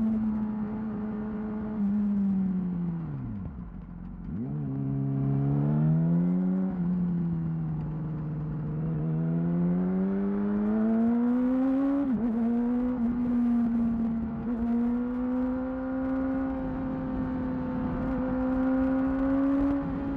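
2008 Yamaha R6's inline-four engine through a Termignoni exhaust, heard from the rider's position while riding. The revs fall steeply about three seconds in, then climb again in steps, with a quick shift about twelve seconds in, and hold steady and high near the end.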